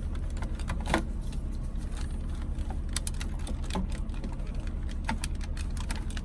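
Irregular small plastic clicks and taps from handling the back of a car's heater control unit and its wiring plugs, over a steady low hum.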